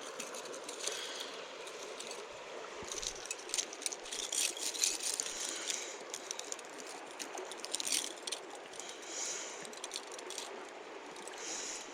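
Steady rush of a small creek, with light rattling and clicking scattered over it, thickest through the middle, from a fish being put on a stringer.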